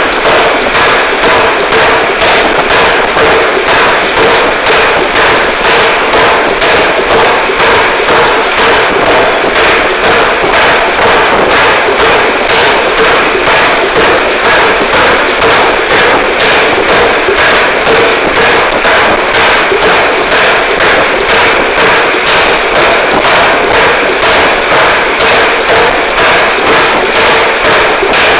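Air forging hammer (pneumatic power hammer) striking red-hot metal held in tongs on the anvil, in a steady run of loud blows at about two a second.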